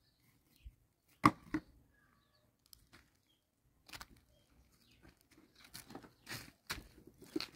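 A plastic carrier bag crinkling and rustling, with footsteps crunching on dry leaves and gravel, in short irregular bursts. The bursts come closer together in the second half as the walking goes on.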